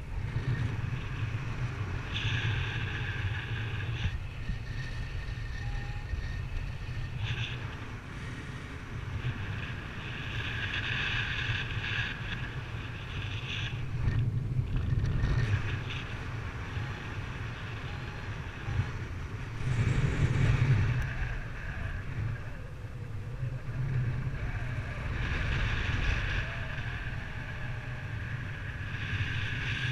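Wind buffeting the microphone in free flight, a steady low rush, with a high whistling tone that comes and goes every few seconds.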